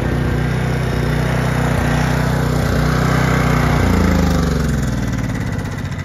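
Open-frame portable gas generator running loudly and steadily. Its engine speed falls and the sound drops in level near the end.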